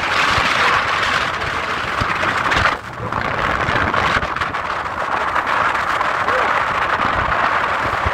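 Steady rushing noise aboard a moving tour boat, its engine and the water along the hull blended together, with a brief drop about three seconds in.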